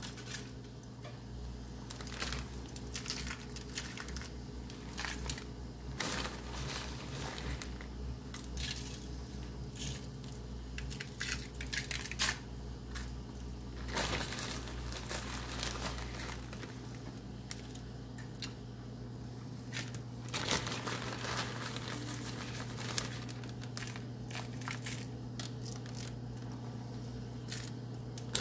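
Plastic zip-top bag crinkling and rustling in irregular bursts as a hand reaches in and scoops out crushed-cracker breadcrumbs.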